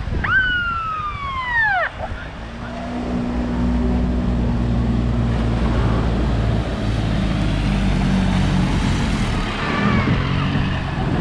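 A single siren whoop, a tone that jumps up and then slides down over about two seconds, from a beach patrol utility vehicle with a red light bar, followed by the vehicle's engine running steadily and growing louder as it drives along the water's edge.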